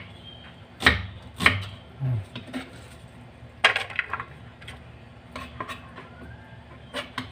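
Kitchen knife chopping through onion onto a thick round wooden chopping block: a handful of sharp, irregularly spaced knocks.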